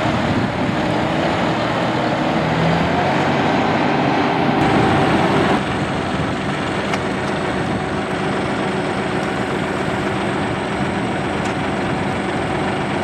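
John Deere 5055E tractor's three-cylinder turbo diesel running steadily; it drops a little in loudness about five and a half seconds in.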